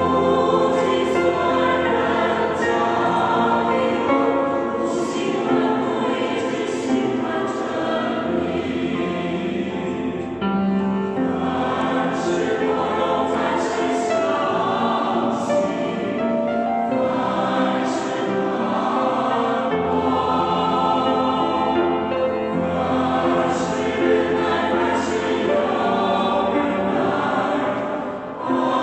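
Mixed choir of men and women singing a hymn in Chinese, in full chords.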